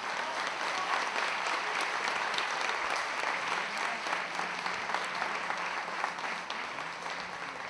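Audience applauding: dense, steady clapping from many hands that eases off slightly near the end.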